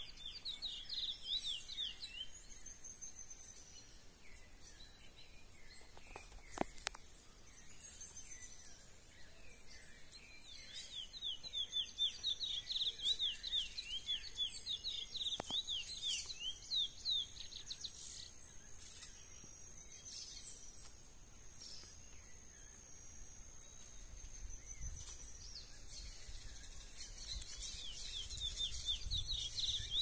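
Wild chestnut-bellied seed finch (curió) singing its natural wild song (canto mateiro): bursts of rapid, sweeping whistled notes. It sings briefly at the start, at length from about ten seconds in, and again near the end. A thin, steady high tone runs behind the song for several seconds in the middle.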